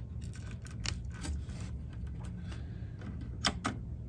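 Small plastic wire-harness connectors being unplugged and plugged in on a cassette deck's circuit board: a few short clicks and rattles, a cluster about a second in and two more near the end, over a steady low hum.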